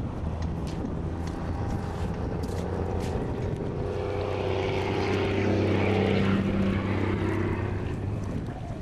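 A motor passing by: a steady low drone that swells to its loudest about six seconds in, then eases off.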